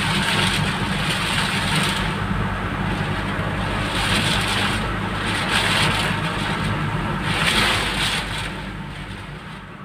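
A motor vehicle's engine running steadily, under a rushing noise that swells and falls every couple of seconds, all fading out near the end.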